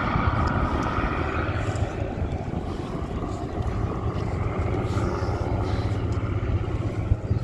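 A Spitfire XIX with its Rolls-Royce Griffon V12 and a P-51 Mustang with its Merlin V12 flying together, their piston engines making a steady drone with a deep low hum.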